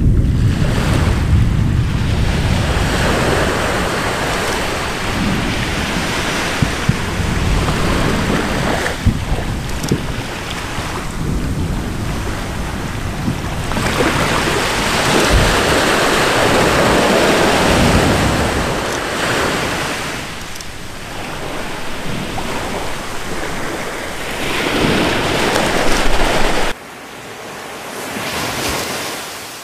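Volcanic eruption heard from across water: a heavy rushing roar and rumble that swells and fades in long surges, with a few sharp cracks. It drops away abruptly near the end, leaving a fainter hiss.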